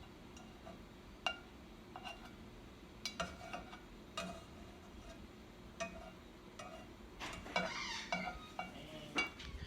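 Scattered clinks and taps of a utensil against a pot as butter melts in it, with a busier run of clatter near the end.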